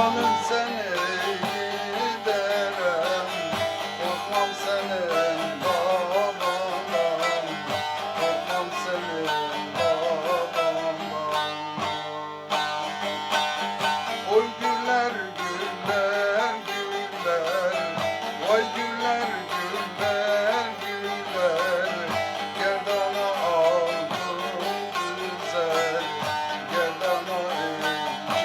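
Instrumental passage of a Turkish folk song: a plucked string instrument plays an ornamented melody over accompaniment.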